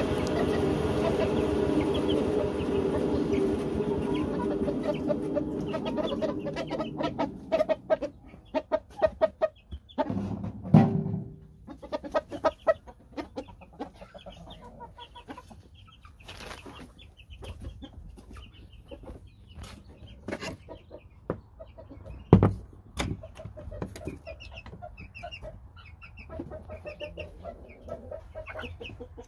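Chickens, roosters among them, calling with short repeated clucks, over scattered sharp knocks and rattles, two of them loud, about eleven and twenty-two seconds in. A louder steady hum fills the first six or seven seconds and then fades out.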